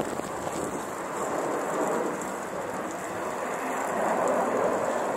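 Jet engine roar from the Blue Angels' four-jet formation flying overhead: a steady rushing noise that swells slightly about four seconds in.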